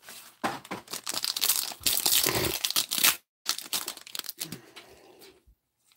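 Trading-card booster pack wrappers crinkling as a pack is torn open and handled. There is dense crackling for about three seconds, then lighter rustles that die away near the end.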